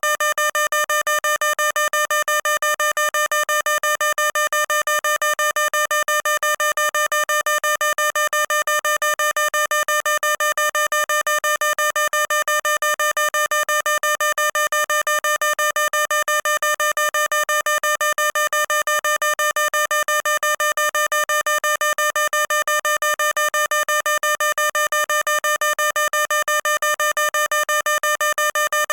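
Fire alarm sounding: a single steady electronic tone beeping on and off, several beeps a second, without pause.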